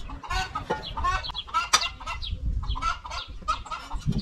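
Chickens clucking: a run of short, pitched calls one after another.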